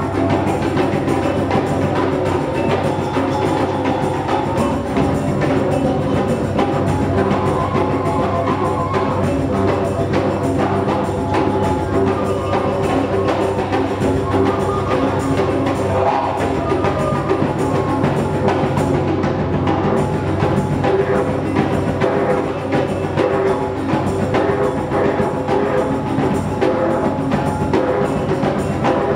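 Live ensemble music: congas, frame drums and other hand percussion play a dense, steady rhythm over a continuous low didgeridoo drone, with a wavering melody line above.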